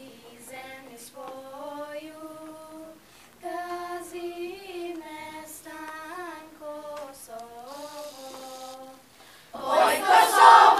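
A small group of girls singing a slow melody together, unaccompanied, in phrases with short breaks between them. Near the end many more voices come in at once, much louder, as a full choir.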